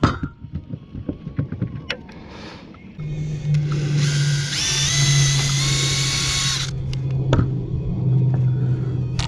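A power drill starting about three seconds in and running steadily, a high whine rising in steps over a low hum before it cuts off near seven seconds; a few light knocks come before it.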